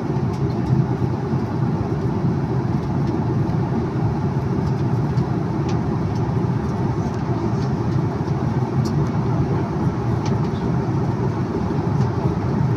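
Steady cabin noise of a jet airliner in level flight: engine and airflow noise, heaviest in the low range, with a few faint clicks.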